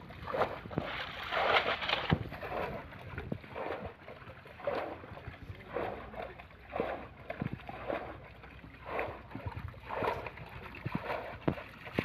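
Shallow muddy water sloshing and splashing in irregular strokes, one every half second to a second.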